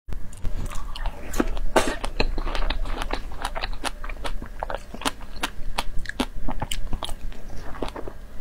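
Biting into and chewing fresh strawberries close to a clip-on microphone: a steady run of small sharp clicks and smacks from the mouth.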